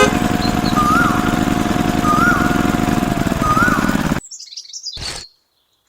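A small engine running steadily with a rapid low pulsing, three short rising-and-falling chirps over it, cutting off abruptly about four seconds in. After the cut come a few brief high chirps and a short burst of noise.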